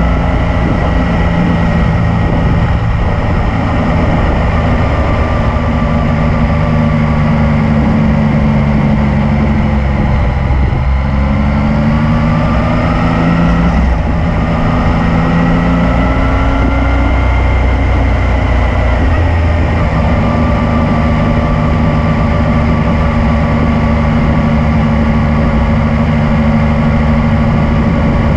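Yamaha MT-09's inline three-cylinder engine running on the move, with a heavy low rumble of wind over the microphone. About ten seconds in the engine note drops, then rises through a gear change and settles into a steady cruise.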